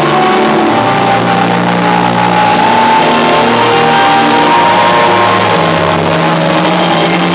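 Loud dance music played over a PA system, with held bass notes under it.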